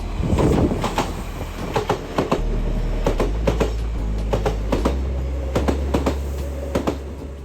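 Kintetsu Minami-Osaka Line electric train running past, its wheels clicking over the rail joints in quick pairs, axle after axle.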